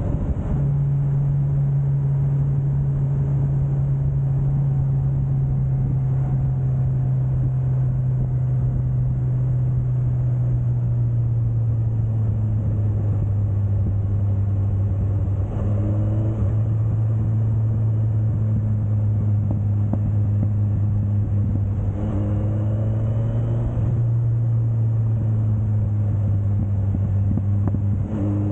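Suzuki GSX1250FA inline-four motorcycle engine running steadily under way, with a rushing road and wind noise underneath. The engine note climbs briefly a few times in the second half as the bike accelerates.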